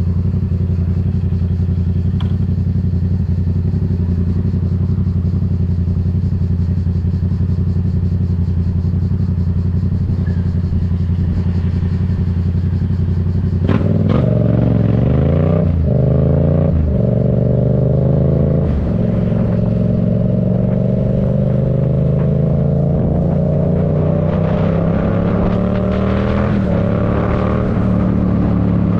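Yamaha MT-07 parallel-twin engine through a Black Widow aftermarket exhaust, running steadily at low revs. About halfway through it revs up hard through a few quick upshifts, then climbs slowly in pitch as the bike keeps accelerating.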